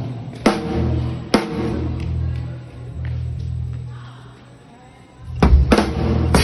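Drum kit played during a sound check: two sharp hits near the start over a held low note that fades away, then the kit comes back in with heavy kick and cymbal hits near the end.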